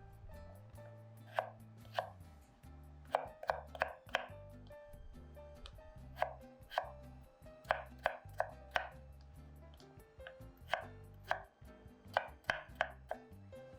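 Knife chopping vegetables on a cutting board: sharp, irregular strokes in short runs with brief pauses between them.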